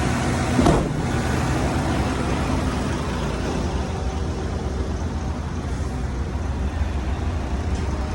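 Road vacuum truck running steadily with a deep, constant drone. There is a brief louder burst under a second in.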